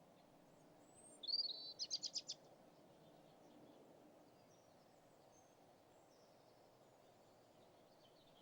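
A small bird's short call: a brief whistled note, then a quick trill of about six notes, with faint chirps later, over a low steady background hum.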